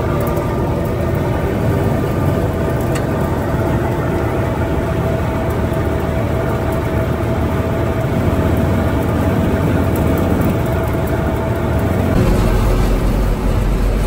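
Gleaner F2 combine running at close range: a loud, steady machine hum with a few held tones. Near the end it turns to a deeper, heavier rumble as heard from inside the cab.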